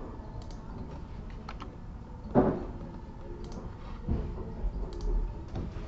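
Computer keyboard keys and mouse buttons clicking now and then, with one louder knock about two and a half seconds in.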